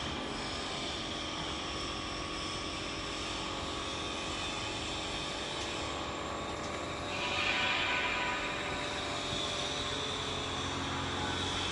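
Steady running noise of a 5-gallon barrel washing and filling line, a drone with several constant tones. About seven seconds in, a louder hiss rises for a second or two.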